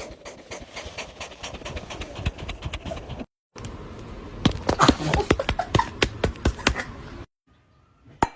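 Scuffling and knocking with a few short cries from a pet animal, the sound breaking off abruptly twice as separate clips are cut together.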